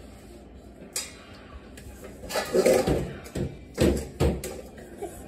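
A baby's palms slapping the stainless steel front panel of a dishwasher, giving several loud bangs between about two and four and a half seconds in, with a light clatter of a metal mixing bowl and plastic bowls on a tile floor.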